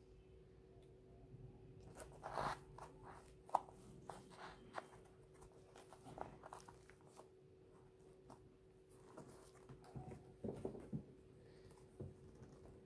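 Soft rustling and scattered light clicks of mesh sneakers being handled, flexed and turned over by hand, with a few sharper taps, over a faint steady hum.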